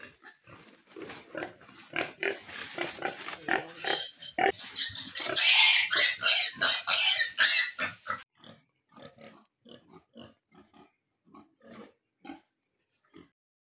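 Piglets grunting and squealing as they are chased and grabbed by hand; the loudest, shrill squealing comes from about four and a half to eight seconds in, then only fainter scattered grunts.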